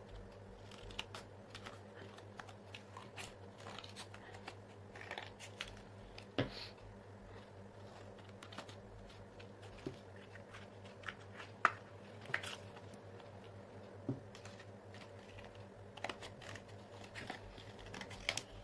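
Scissors cutting thin cardboard: irregular short snips and crunchy clicks of the blades closing through the board, over a faint steady hum.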